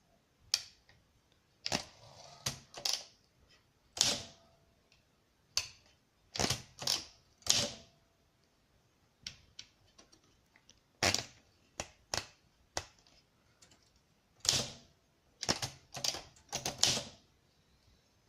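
Olympia SM4 manual typewriter being typed on slowly: sharp, separate key-and-typebar strikes against the platen, some single and some in quick clusters of two or three, with short pauses between.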